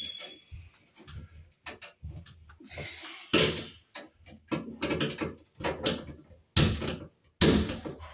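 A screwdriver working at the wiring inside a fluorescent light fixture's metal housing, making irregular clicks and knocks, with several louder scraping rattles in the second half.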